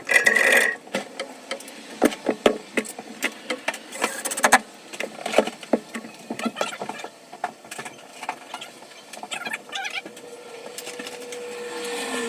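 Irregular clicks, taps and knocks of tools and metal parts being handled, with a louder burst at the start and a steady tone that slides lower in pitch near the end.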